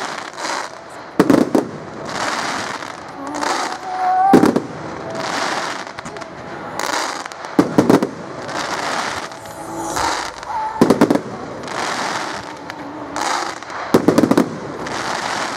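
Fireworks display: shells bursting with sharp loud bangs about every three seconds, with hissing and crackling swells between the bangs.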